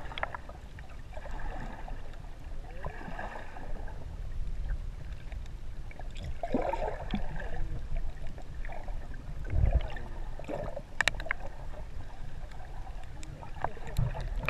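Sea water heard from a camera held underwater: a steady muffled low rumble with gurgling swirls and a few sharp clicks or knocks about ten seconds in.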